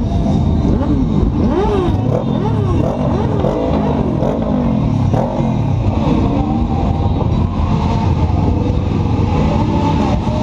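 Several motorcycle engines being revved again and again, overlapping rises and falls in pitch one after another over a steady idling drone.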